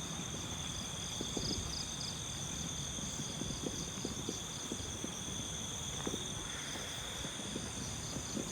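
Night insects, crickets among them, chirring steadily in several high, unbroken tones, one of them pulsing. Beneath them is a low rumble of wind on the microphone with scattered soft knocks.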